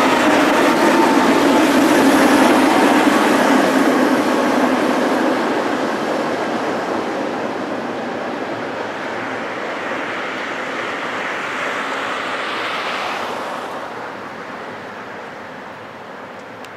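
Tatra tram set running past on street track and pulling away: wheel and running noise with a low hum, loud at first and fading steadily as the tram moves off into the distance.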